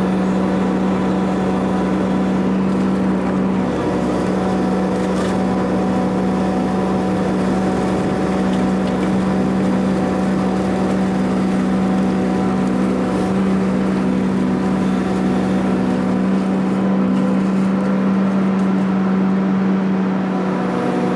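Amphibex AE400E amphibious excavator running its hydraulic rotary rock grinder against rock and rubble at the waterline: a steady, loud machine drone with a strong low hum.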